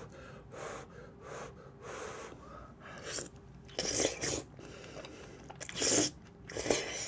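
Close-miked eating noises: a string of short noisy mouth sounds and breaths as food is chewed, the loudest about six seconds in.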